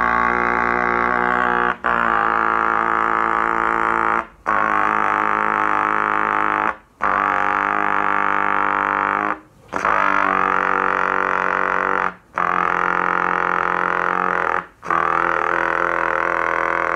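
Trumpet playing very low double pedal notes with an unfurled-lip embouchure. It plays seven long held tones, each about two and a half seconds, with short breaks between them, loud and steady.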